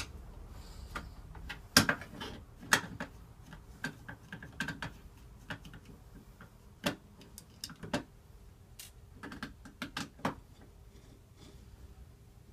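Irregular small metal clicks and taps from a 5-lever mortice lock being handled as its face plate is taken off.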